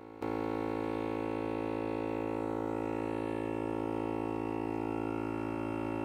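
Superflow MV-50 12-volt portable air compressor running steadily as it inflates a freshly plugged trailer tire through its hose. It makes an even droning hum that gets suddenly louder just after the start.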